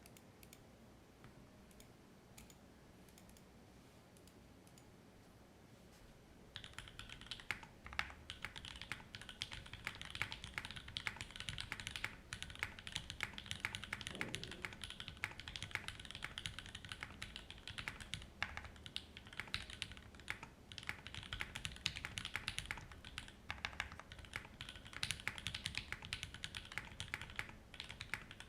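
Typing on a Monstargears Sangeo60 mechanical keyboard with lubed and filmed Alpaca V2 linear switches. There are a few scattered keystrokes at first, then fast, continuous typing from about six and a half seconds in.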